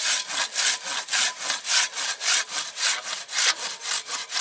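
Large Silky Katanaboy 500 folding pull saw cutting through a thick tree trunk in quick, even strokes, about three to four a second. Each push and pull of the coarse teeth gives a separate rasp.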